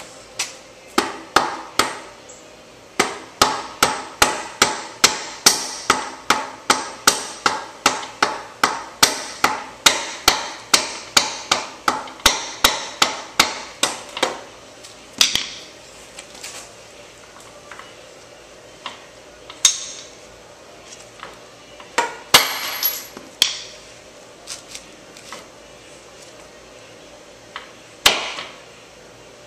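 Rear axle of a Kawasaki ZX6R being tapped through the swingarm and wheel hub with a hammer. The knocks come at a steady rate of about two a second for roughly the first half, then turn into a few scattered knocks as the axle seats.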